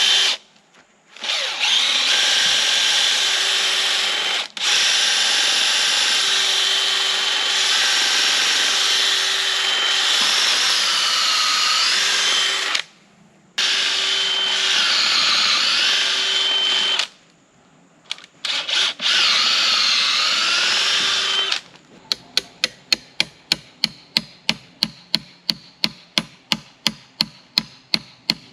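Power drill boring through a wooden post, running in long stretches with a few short stops, its pitch sagging and recovering under load at times. About three-quarters of the way in, the drilling gives way to a steady run of sharp clicks, about four a second.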